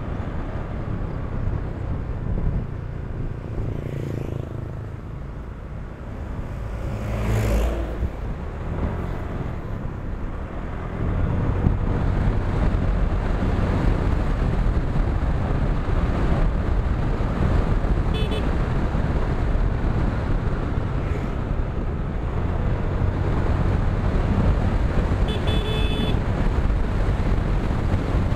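Motorcycle riding along a road, heard from the bike: the engine running under steady wind noise on the microphone, louder after about eleven seconds. There are short horn beeps twice, near the middle and again near the end.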